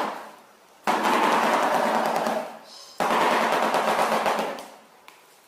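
Shoebill bill-clattering: the beak snapped open and shut very fast, giving a rapid, hollow, wooden clacking like machine-gun fire. It comes in two bouts, each starting suddenly, about a second in and about three seconds in, and dying away over a second or so. It is a display of excitement or aggression.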